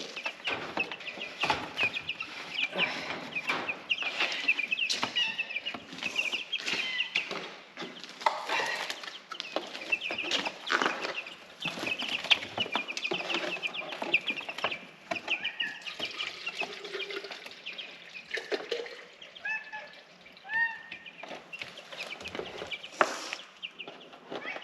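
A brood of young layer chicks peeping steadily in many short, high chirps, with scattered clicks and knocks throughout.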